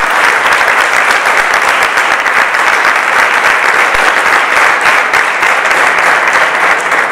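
A large audience applauding, a dense, steady clapping that starts to die away at the very end.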